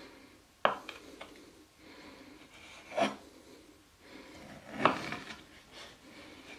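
Chef's knife slicing through raw beef fillet on a wooden chopping board: three cuts about two seconds apart, each a drawn stroke with the blade scraping against the wood.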